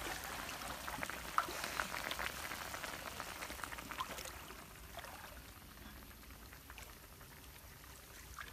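Clams and mussels bubbling and crackling in their juices in a pan over a portable gas stove, with many small pops over a steady hiss. After about four seconds it fades to a faint even hiss.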